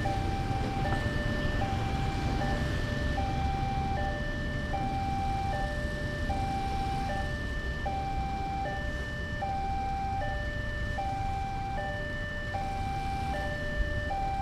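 Railway level-crossing warning alarm: an electronic two-tone signal alternating evenly between a higher and a lower note, each held about two-thirds of a second, warning that a train is coming. A low rumble of idling motorcycles and road traffic runs underneath.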